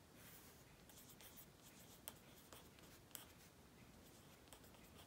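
Faint scratching of a felt-tip marker pen writing a word on paper, with a few light ticks of the pen tip meeting the paper, the clearest about two and three seconds in.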